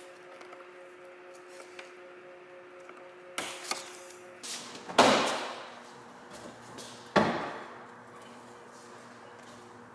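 Two sharp plastic knocks about two seconds apart, each with a short ringing tail, preceded by a few lighter clicks, as the plastic front bumper cover and its brackets are pushed and tapped into place.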